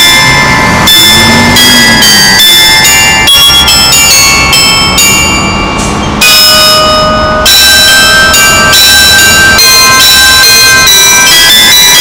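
Carillon bells on an outdoor bell tower playing a tune as the seven o'clock evening chime. Struck notes follow one another quickly with their ringing overlapping, and there is a short lull about halfway through.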